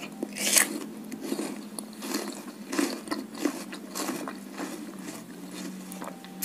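Chewing of crisp water apple (jambu air): irregular crunches a few times a second.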